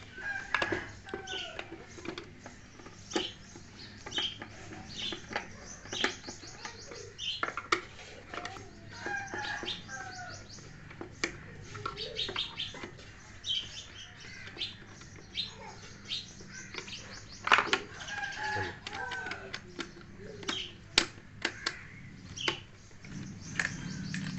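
Clicks and knocks of plastic parts being handled as a juicer blender's housing is fitted back on, with small birds chirping in the background. A low hum comes in near the end.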